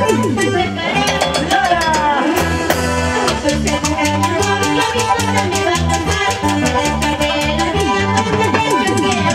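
Live band music with bass guitar, drums and timbales on a steady, repeating bass pulse, and a girl singing into a microphone over it.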